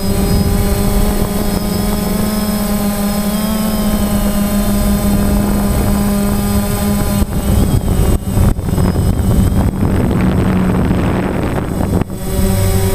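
DJI Phantom quadcopter's motors and propellers in flight, a loud steady buzzing drone heard close up from the camera mounted on the aircraft. In the second half the sound breaks up in brief crackles and dips.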